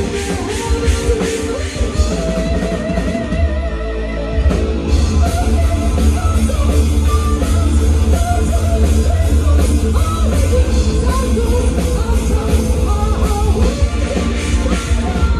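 Live symphonic power metal band: a female lead singer holding wavering, vibrato notes over distorted electric guitars, bass guitar and a drum kit, with a heavy, booming low end.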